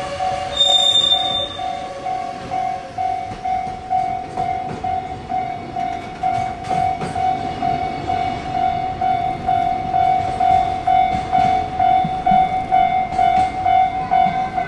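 Japanese level-crossing warning bell ringing in steady repeated dings, about two a second, as a train passes with its wheels clicking over rail joints. A train horn fades out in the first two seconds, and a short high tone sounds about a second in.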